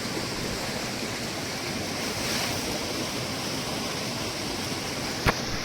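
Steady outdoor rushing noise, with a single sharp click near the end.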